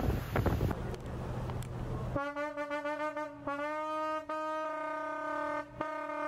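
Wind buffeting the microphone on a moving boat for about two seconds. Then the wind noise cuts off and background music begins: a wind-instrument melody of long held notes that step slightly in pitch, with short breaks between phrases.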